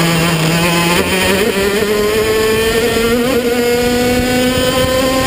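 Racing kart's engine heard on board at full throttle, its pitch climbing steadily as the kart accelerates down a straight, then dropping sharply at the end as the throttle is lifted.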